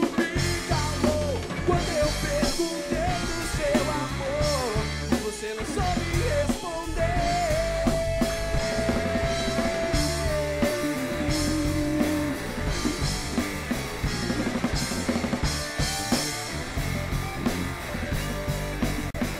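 Rock band playing live: drum kit, electric guitars and bass, with a male voice singing over them.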